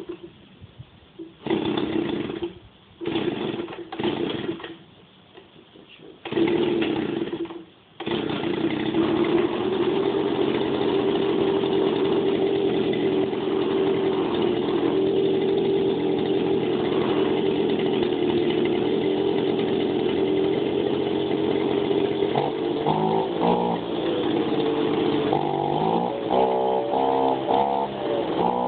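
Small Echo two-stroke engine being cold-started on low fuel: it fires in a few short bursts that die out, then catches about eight seconds in and runs steadily, with the revs shifting up and down near the end.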